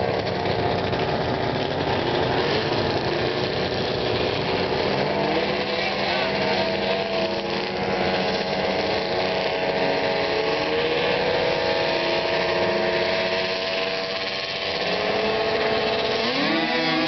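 Several vintage two-stroke snowmobile engines running at the start line, idling and blipping with a steady, slightly wavering pitch. Near the end one engine revs up, its pitch rising.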